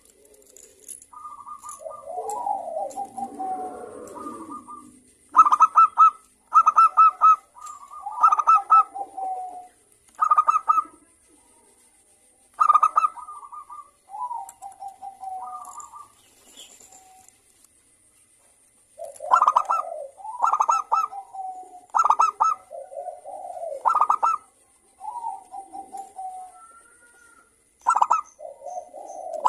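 Zebra dove (local perkutut) singing in a clear, 'crystal' voice: repeated cooing phrases, each of quick stuttering high notes dropping to a lower rolling coo, coming every second or two, with a short pause about two-thirds of the way through.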